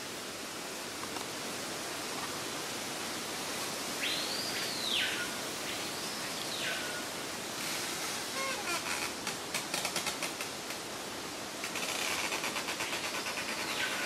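Humid tropical forest ambience: a steady hiss, with two drawn-out sounds that rise and fall in pitch about four and six seconds in, then fast pulsing rattles from about eight seconds in and again near the end.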